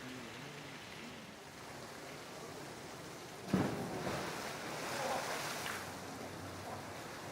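A polar bear plunging into its pool: a sudden heavy splash about halfway through, followed by a couple of seconds of churning, sloshing water.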